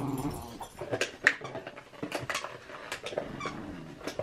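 Miniature schnauzers playing tug-of-war over a toy: a low dog growl fading in the first half second, then scuffling with a run of sharp clicks and knocks, the loudest a little over a second in.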